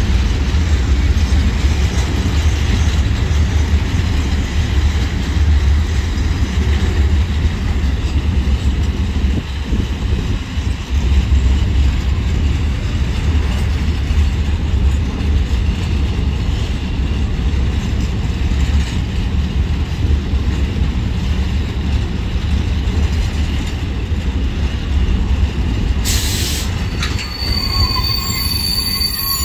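Loaded Shimmns steel-coil freight wagons rolling past, their wheels on the rails making a loud, continuous heavy rumble. Near the end comes a short sharp noise, then high, steady wheel squeal.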